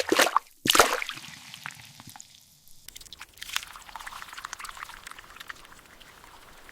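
Liquid pouring and splashing sound effect: two loud splashes in the first second, then trailing drips and a faint crackling fizz that fades out.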